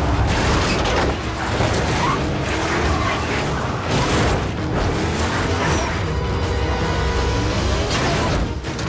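Action-film car-chase sound mix: cars' engines racing with heavy thuds of impacts, under a loud driving music score.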